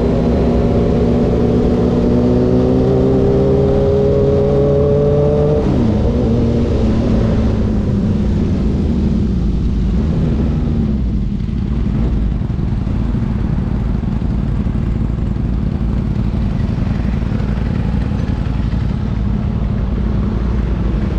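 Motorcycle engine pulling steadily higher in pitch for about six seconds, then the note drops and slides down, leaving a steady rumble of engine and riding noise.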